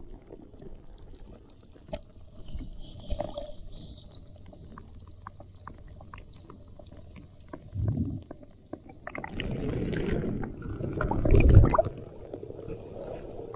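Shallow seawater heard through a submerged action camera: muffled, with many small scattered clicks. About eight seconds in, water begins sloshing and splashing over the camera, loudest just before the end, as the camera comes up to the surface.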